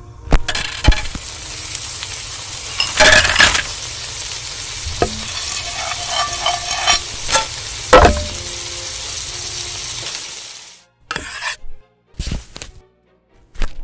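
Steady sizzling hiss of food frying in a pan, with a few sharp clinks and scrapes of a utensil being stirred. The hiss cuts off about ten and a half seconds in, followed by a few short knocks.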